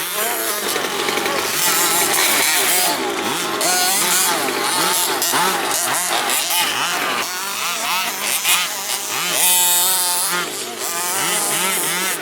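Small two-stroke petrol engine of a large-scale FG RC monster truck, revving up and down over and over as the truck is driven.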